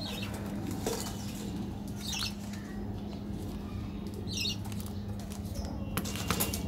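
Plastic candy wrapper rustled and handled, with a few clicks as packets are set down on a table near the end, over a steady low hum. Birds chirp briefly now and then in the background.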